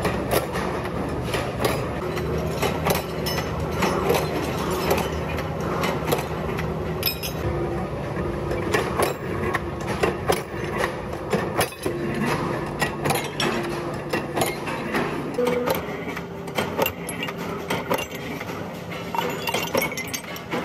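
Mechanical power press running with a steady hum, over many sharp metallic clanks and clinks as old steel leaf springs are handled and cut in its die.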